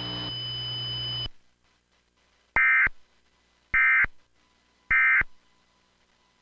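Emergency Alert System End-of-Message code: three short, identical bursts of buzzy digital data tones, each about a third of a second long and a little over a second apart, marking the end of the alert. Before them a steady electrical hum with a high whine cuts off sharply about a second in.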